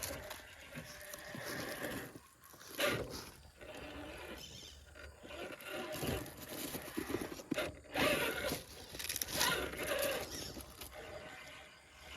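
Redcat Vertex 6 1/6-scale RC rock crawler on the move: its electric motor whine comes and goes with the throttle while the tyres scrape and crunch over rock and dirt.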